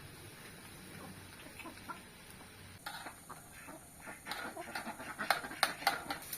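Chickens clucking: a quick run of short clucks in the second half, loudest near the end.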